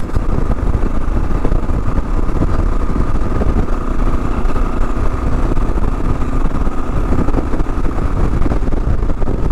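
A 2022 Kawasaki KLR 650's single-cylinder engine running steadily at cruising speed through a Lexx slip-on exhaust, heard from on the moving bike.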